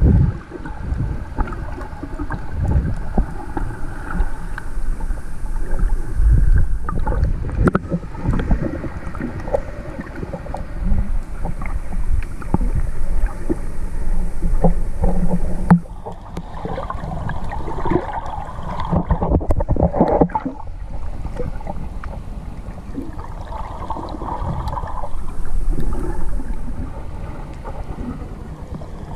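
Wind buffeting the microphone over water noise, with scattered knocks and bumps.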